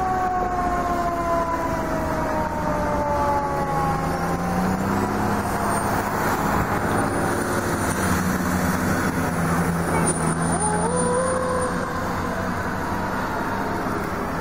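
An emergency vehicle siren sliding down in pitch over the first few seconds, over steady vehicle engine and road noise, with a short rising siren wail about ten seconds in.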